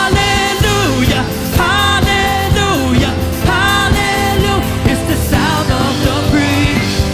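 Live praise-and-worship band playing a full-band song, with drums, sustained bass and a sung or lead melody that glides between notes.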